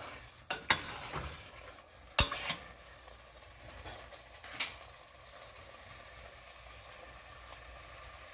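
Mutton and masala sizzling faintly in a pressure cooker while a metal spoon knocks and scrapes against the pot several times in the first five seconds, the loudest knock a little after two seconds; after that only the low steady sizzle goes on.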